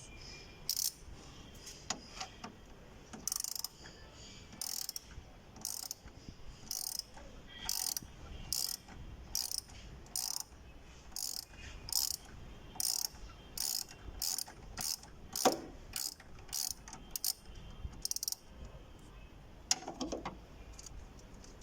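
A 10 mm wrench working loose a nut that holds a car headlight unit: a long run of short, high clicking strokes, one every half second to a second, with one louder knock about three-quarters of the way through.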